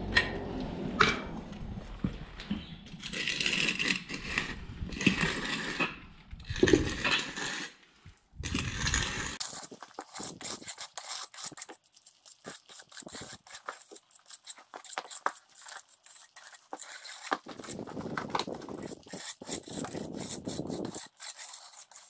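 Concrete edger and magnesium float scraping across fresh, still-soft concrete, finishing the edge of a narrow footing. There is uneven rustling at first, then many short, quick scraping strokes from about halfway through.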